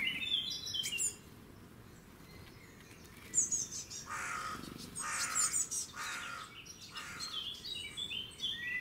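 Outdoor birdsong: small birds chirping in quick, high, stepped notes, with a few rougher, harsher calls about four to six seconds in.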